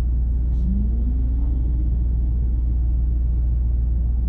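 Steady low rumble of a Mercedes-AMG twin-turbo V8 heard inside the cabin, with a faint rising tone about half a second in.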